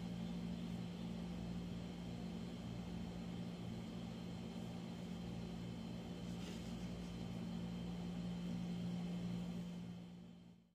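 Steady low hum with background hiss, fading out near the end; a brief soft rustle about six and a half seconds in.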